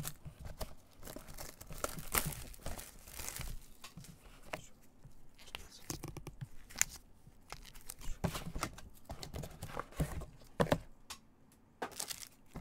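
Plastic wrap and cardboard packaging of a sealed trading card hobby box being torn open and crinkled by gloved hands, with irregular crackling and a few sharp knocks as the mini boxes inside are handled and set down.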